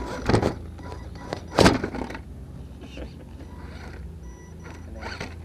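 Sharp knocks and thuds from a radio-controlled rock crawler's tyres and chassis bumping over rock: three in the first two seconds, the third the loudest, then a few faint clicks.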